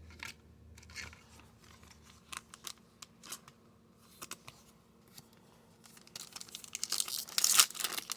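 Trading cards being handled with faint light clicks, then from about six seconds in a foil card-pack wrapper crinkling and tearing, getting louder toward the end.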